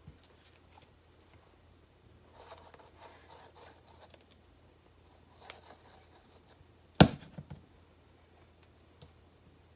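Hands working with a plastic glue bottle and stiff Peltex and fabric pieces on a cutting mat, making faint rustling and light scraping. About seven seconds in there is one sharp knock, followed by a couple of lighter taps, as the plastic glue bottle is set down on the mat.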